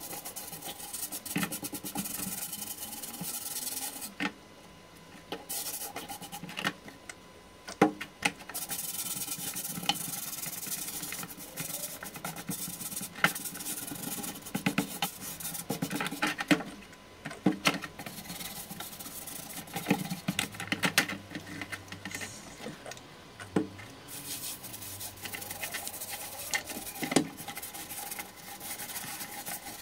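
A scouring pad scrubbing the rusty, fluted steel canister of a WWII German gas mask, in bouts of rubbing with short pauses between them. A few sharp knocks come from the metal can being handled.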